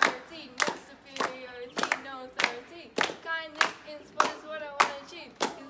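A group of people clapping together to a steady beat, about one clap every 0.6 seconds, with voices chanting in time between the claps.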